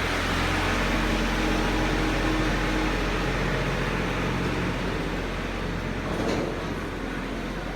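Steady mechanical hum under a constant noise, with a brief faint sound about six seconds in.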